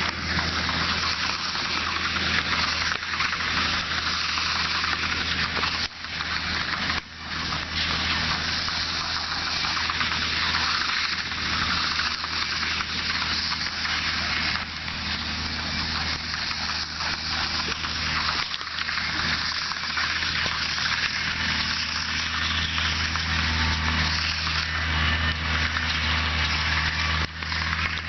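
Case IH Maxxum 140 tractor's engine running steadily, with a loud even hiss over it. The sound drops out briefly twice, about six and seven seconds in.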